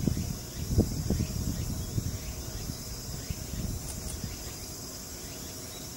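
Steady high insect chorus of crickets or cicadas. Low rumbling with a few dull thumps during the first two seconds.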